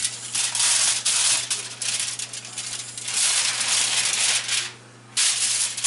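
Aluminium foil crinkling and rustling as a raw leg of lamb is turned over on a foil-lined baking tray, in two long stretches with a brief pause near the end.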